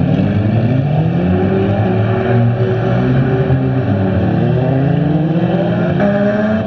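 Engines of several front-wheel-drive stock cars running and revving at once, their pitches rising and falling and overlapping as the cars accelerate and lift around the track.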